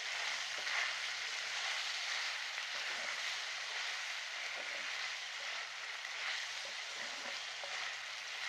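Chicken karahi with cream and masala sizzling steadily as it fries in the karahi, being cooked down until the cream dries out.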